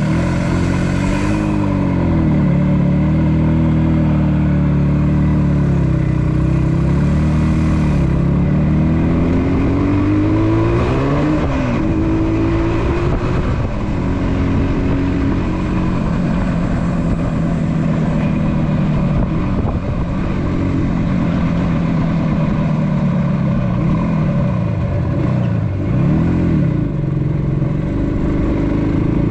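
1976 Yamaha RD400's two-stroke parallel-twin engine running as the motorcycle pulls away and rides, its pitch rising and falling repeatedly as it speeds up and slows.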